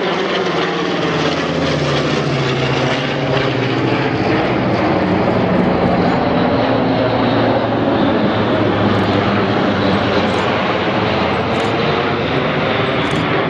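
Airbus A400M's four TP400 turboprop engines and eight-bladed propellers drone loud and steady as the aircraft flies low overhead in a formation pass. The propeller tones drop in pitch as it goes by.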